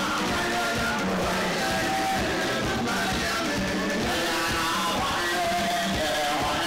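Zimbabwean guitar band playing live: singing over drum kit and hand percussion, with a steady beat.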